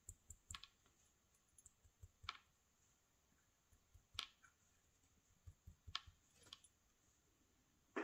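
Faint, scattered small clicks from the brass core and pins of a padlock being handled over a pin tray, with the sharpest click about two seconds in and a short run of clicks around six seconds.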